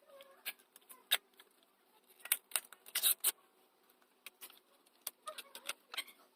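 Irregular sharp clicks and taps of small hard parts being handled, densest about halfway through.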